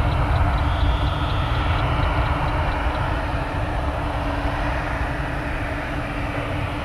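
Boeing 757's twin jet engines at takeoff thrust as the airliner rotates and climbs out: a loud, steady low rumble with a faint steady hum, easing slightly as it pulls away.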